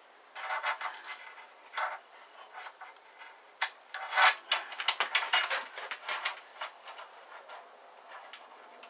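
Small clicks, taps and rubbing from hands handling the bandsaw's metal upper blade guide blocks and a feeler gauge while setting the blocks against the blade. The loudest part is a quick run of clicks in the middle.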